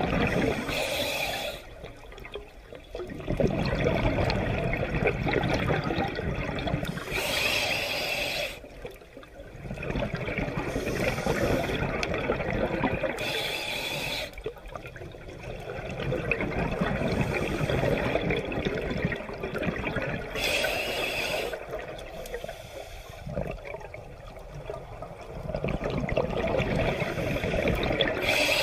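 Scuba diver breathing through a regulator underwater: a short hiss on each inhale, then a long rush of bubbles on each exhale, in slow cycles several seconds apart.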